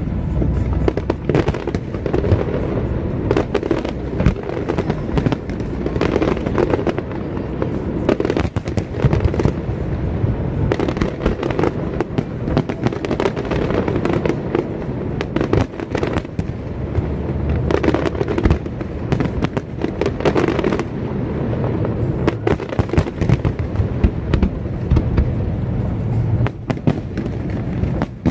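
Fireworks display: a dense, unbroken run of overlapping bangs and pops, several a second, over a low rumble.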